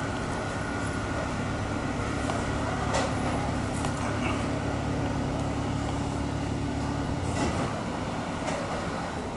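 Airbus A330-300's jet engines idling as the airliner taxis slowly up to the gate: a steady rumble with a low hum that drops away about seven seconds in, and a few faint clicks.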